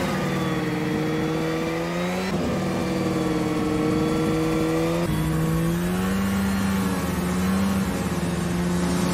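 Snowmobile engine running under way at a steady high speed, its pitch sagging and rising slightly, with abrupt shifts in pitch about two and five seconds in.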